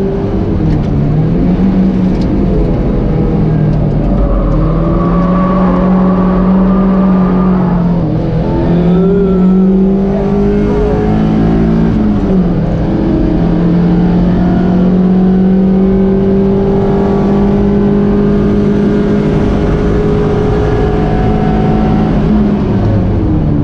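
Mazda MX-5's four-cylinder engine with a modified HKS intake, heard from inside the stripped cabin while lapping hard: the engine note climbs and holds at high revs, falling back and climbing again four or five times.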